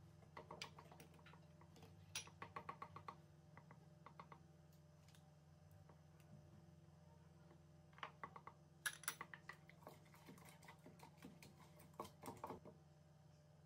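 Four short runs of quick, light clicks and taps from a plastic spoon scraping and knocking against a small bowl and a wooden mortar as sauces are spooned in and stirred.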